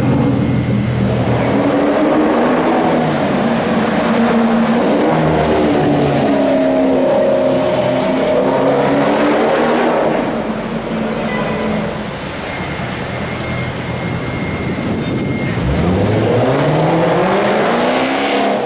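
Range Rover Sport with a custom exhaust being revved hard, its engine pitch swinging up and down in repeated blips. It drops quieter about ten seconds in, then accelerates with a steadily rising pitch near the end.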